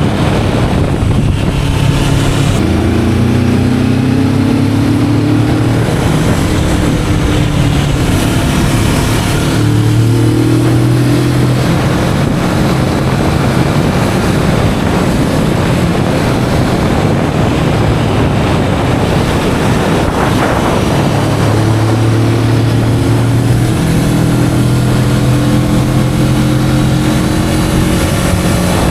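Kawasaki Vulcan S 650's stock parallel-twin engine running on the road, its note climbing a few times as it accelerates, under heavy wind noise buffeting the action camera's built-in microphone.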